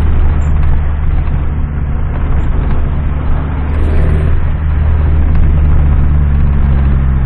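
Ford Focus 2.5 engine running at a steady idle with a loud, deep exhaust rumble.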